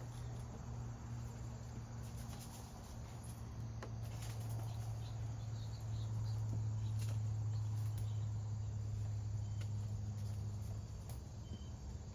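Crickets chirring in the background over a steady low hum, the hum growing louder about halfway through.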